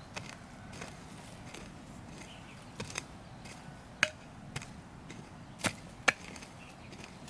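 A handful of sharp chopping strikes, spaced irregularly, with the loudest coming about four and six seconds in, over a steady outdoor hiss.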